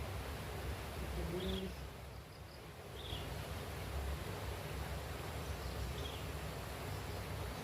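Birds calling over a steady background hiss: a low call about a second and a half in, and short high chirps every second or two.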